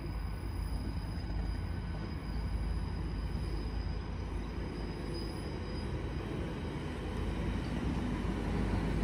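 A TransPennine Express Class 802 train approaching along the line, its steady rumble growing louder as it nears.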